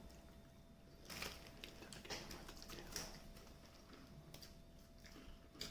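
Faint, scattered crunches of a cheese wafer snack being bitten and chewed, a few short crackles spread over several seconds.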